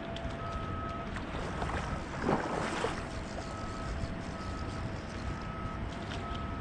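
Steady rush of flowing tailwater river and wind on the microphone, with a louder splashy surge about two and a half seconds in. A faint steady tone and a higher tone in short repeated dashes sound over it.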